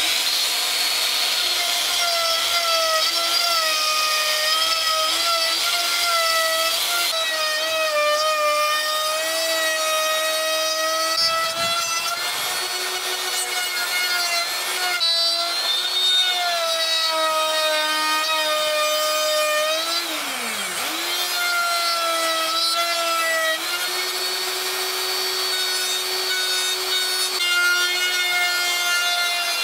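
Skil plunge router running while cutting a groove along a plywood scrap board: a steady high motor whine that wavers slightly in pitch as the bit works through the wood. About two-thirds of the way through, the pitch drops sharply and climbs back up.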